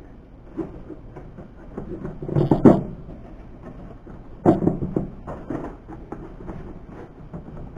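Knocks and rattles from a plastic battery box being pushed and pulled by hand in its strapped mount, to check that it is held tight. The loudest knocks come about two and a half seconds in and again about four and a half seconds in, with lighter ones between.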